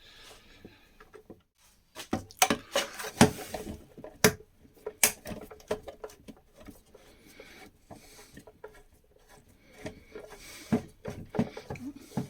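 Scattered clicks and knocks of a screwdriver and the plastic case of a Makita site radio being handled while a hidden case screw is worked at. The knocks come thickest a couple of seconds in and again near the end.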